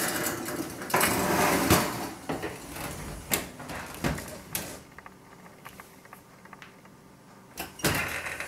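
Metal oven rack scraping as it slides into a gas range, a few sharp knocks as the oven door is shut, then a rush of noise as the door is pulled open again near the end.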